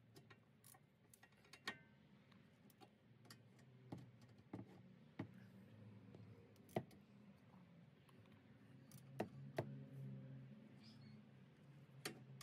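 Faint, scattered clicks of a ratchet and 12 mm socket tightening the rear brake caliper guide pin bolts, about eight irregular ticks over a near-silent background.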